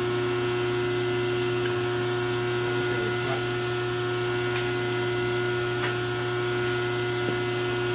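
Steady electric hum from the powered-up Sunlike RD-750 radial drill press on its three-phase supply, with a few faint clicks as the machine is handled.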